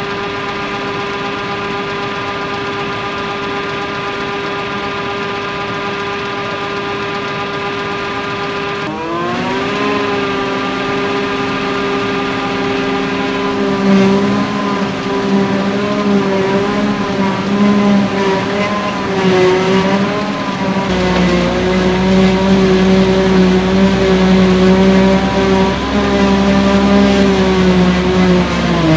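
John Deere 7750 self-propelled forage harvester running while chopping hay, a loud, steady high whine from the machine. About nine seconds in the pitch dips and climbs again, from about halfway it wavers up and down, and a deeper hum joins later on.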